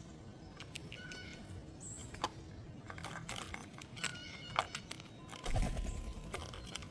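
Small birds at a feeder giving short, scattered chirps and clicks. A louder low thump with a brief rumble comes about five and a half seconds in.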